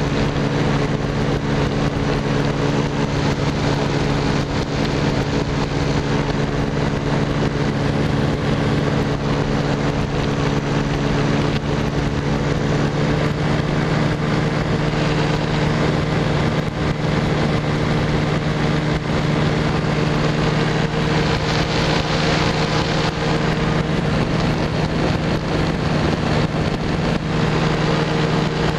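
Light aircraft's engine running steadily in flight, a constant drone with rushing wind noise over the microphone. The engine note shifts slightly about halfway through.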